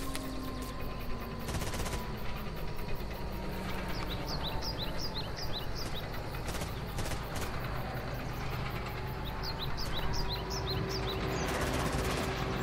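Layered woodland and war ambience: two runs of quick high falling bird chirps, over a slow gliding tone like a distant siren and a few short bursts of crackling noise.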